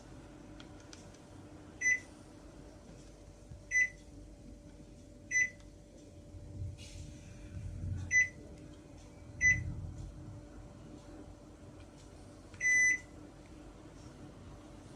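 Panasonic CS-KC5HKJ air conditioner's indoor unit beeping as it takes remote-control commands: six short high beeps a second or two apart, the last one longer. Underneath runs a steady low hum.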